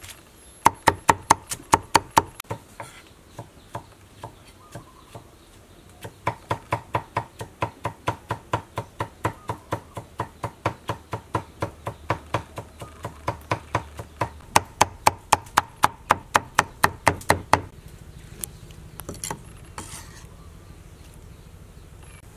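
Cleaver chopping tomatoes on a wooden cutting board: sharp, quick knocks of the blade on the board at about four a second, in two runs with a pause between, stopping a few seconds before the end.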